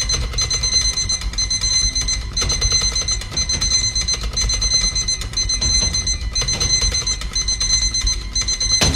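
Rapid high-pitched electronic beeping in the manner of an alarm clock, pulsing about twice a second, over a steady deep rumble.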